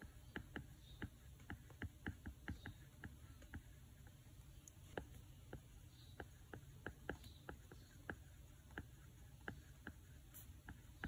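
Faint typing: light, irregular key taps, a few a second, with a short pause partway through.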